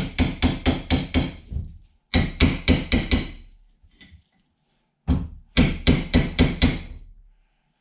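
Hammer tapping a John Deere mower-deck spindle pulley to drive it off the spindle shaft, in quick runs of about five taps a second, each ringing briefly. The taps come in three runs with short pauses between them, and one lone tap before the last run. The pulley is working loose and nearly off.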